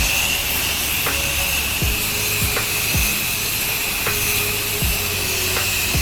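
Background music with a beat of deep, falling bass kicks about once or twice a second. Under it is the steady hiss of a pressure washer spraying.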